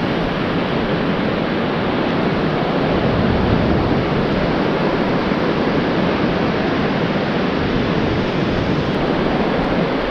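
Ocean surf breaking and washing up a sandy beach, a steady rushing noise.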